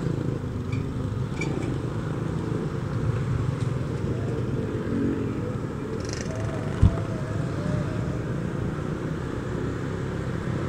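Honda Vario 125 scooter being ridden, its small single-cylinder engine and the road noise making a steady rumble, with a single thump about seven seconds in.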